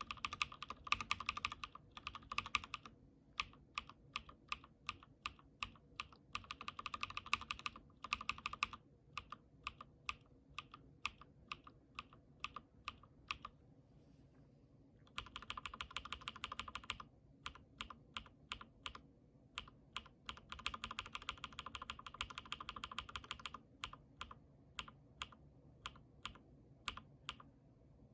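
Lubed and filmed linear mechanical keyboard switches (Cherry, Gateron and Durock, with polycarbonate films and Krytox-lubed stems) being typed on. Fast runs of keystrokes alternate with slower single presses about one or two a second.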